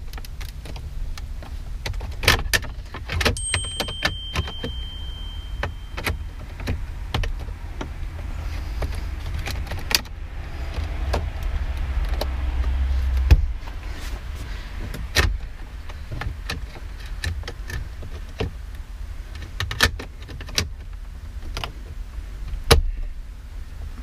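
Plastic dash trim on a 5th Gen Toyota 4Runner being pressed and clipped back into place by hand: an irregular run of sharp clicks, snaps and knocks, over a steady low rumble.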